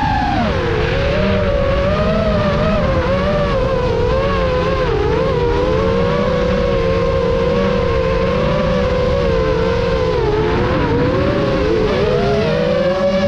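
FPV quadcopter's brushless motors and propellers whining in flight, heard from the onboard camera. The pitch falls just after the start, wavers with the throttle, dips about ten seconds in, and climbs again near the end.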